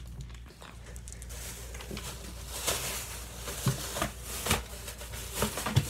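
Handling noise: a rustling hiss through the middle as packaged craft sticks and the filming phone are moved about, with a few soft knocks, the last near the end.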